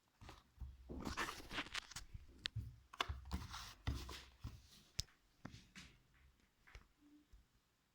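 Hands handling and opening the packaging of a new speaker: irregular rustling and scraping with low bumps and a few sharp clicks, busiest in the first half.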